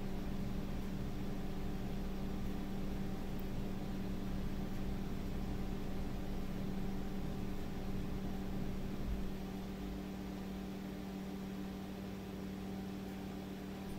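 Steady low hum over a hiss of room noise, with a low rumble that eases off about nine seconds in.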